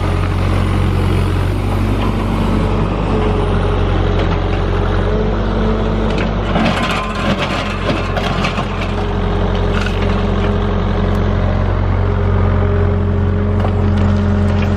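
Excavator's diesel engine running steadily, with the bucket crunching and scraping through rock and dirt for a few seconds about halfway through.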